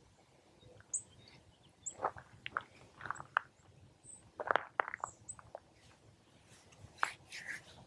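Sharp irregular clicks and taps as a male northern cardinal cracks seed with its bill at a tube feeder, loudest in the middle. Brief high bird chips come now and then, and a few falling bird calls near the end.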